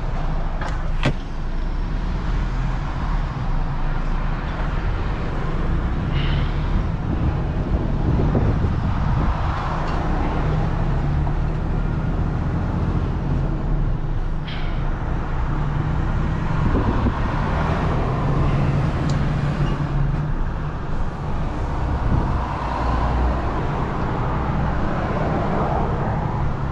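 Diesel engine and road noise of a DAF heavy recovery truck driving slowly while towing a loaded 26-tonne lorry suspended on its boom, a steady low drone that rises and falls a little in pitch. A few sharp clicks come through now and then.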